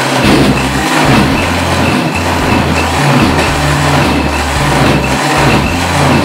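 Philips countertop blender running at full speed, grinding chopped green leaves in its jar; the motor hum wavers and dips every second or so as the contents churn around the blades.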